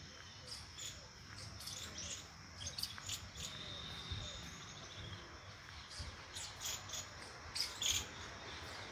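Small birds chirping in short, high, repeated calls, loudest near the end, over a low background rumble.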